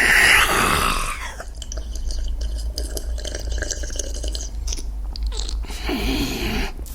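Vocal sound effects for a vampire character, made with the mouth. A loud breathy hiss comes at the start, then a few seconds of wet clicking and chewing mouth noises, then short low grunts near the end.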